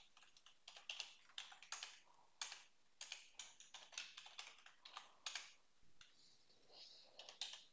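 Faint computer keyboard typing: quick, irregular keystroke clicks, pausing for a moment about two-thirds of the way through before a few more keys.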